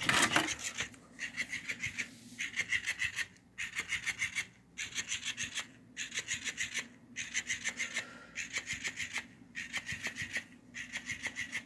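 Rechargeable robotic fish cat toy flopping its tail: its motor and plastic joints clatter in rattling bursts of about a second each, one after another about once a second, with short pauses between. The noise comes from the joints, which are dry and unlubricated.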